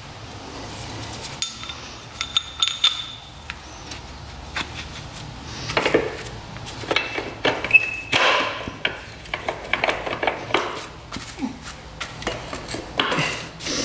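Hand tools clinking and knocking on a dirt bike's metal parts: a string of sharp taps and clanks, some with a short metallic ring.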